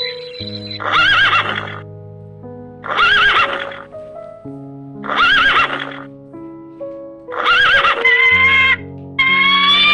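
Horse whinnying, the same wavering call heard four times about two seconds apart, over background music. About eight seconds in, a different call with steadier tones takes over.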